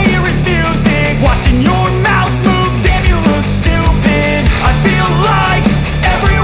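Background rock music with a steady beat and a melodic line.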